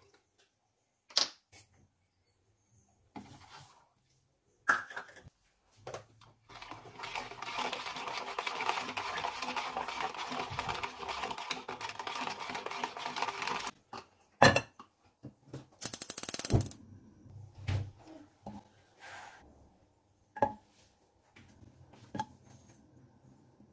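A utensil stirring milk in a plastic jug: a fast run of clicking and scraping against the jug that lasts about seven seconds. Scattered taps and knocks of kitchen utensils come before and after it, and near the end a spoon knocks and scrapes against a pan as ghee is spooned in.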